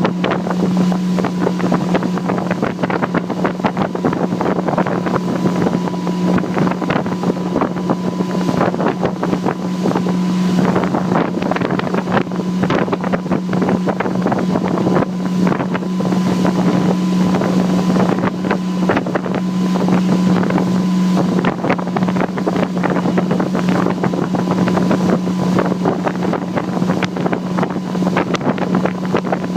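Motorboat engine running at a steady drone, with wind buffeting the microphone and water rushing and slapping throughout.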